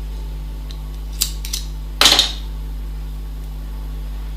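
Scissors snipping the knitting yarn: two light clicks a little over a second in, then a louder cluster of quick clicks about two seconds in.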